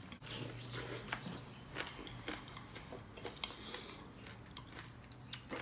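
A man chewing a mouthful of taco close to the microphone: faint, irregular soft mouth clicks and smacks.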